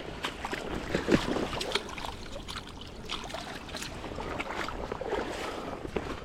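Creek water splashing and sloshing, with irregular short splashes and knocks.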